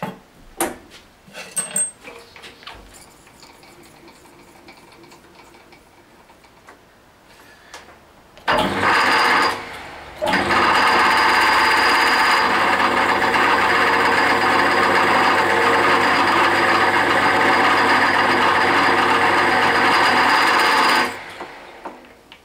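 Metal lathe handled and run. A few clicks and knocks of the controls come early on. The motor and spindle start about eight seconds in, cut out briefly and restart, then run steadily and loudly for about ten seconds before being switched off near the end.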